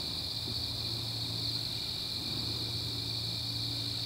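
Steady, even chorus of crickets and other insects, a high shrill with no breaks, over a low steady hum.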